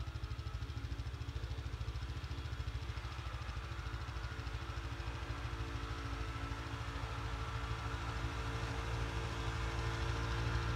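Yamaha RMAX 1000 side-by-side on snow tracks, its parallel-twin engine running steadily under load as it pushes through deep snow, getting louder over the second half as it comes closer.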